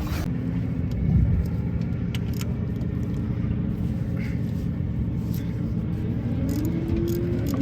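Car engine rumble. The engine note rises slowly near the end, as an engine revs up.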